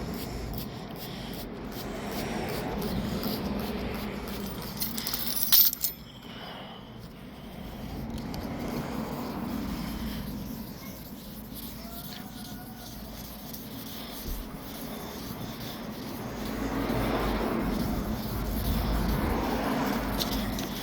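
Fine-grit wet sandpaper rubbing back and forth over a car's painted panel by hand, a soft scraping hiss that swells and fades with the strokes. A brief, sharper sound cuts in about five and a half seconds in.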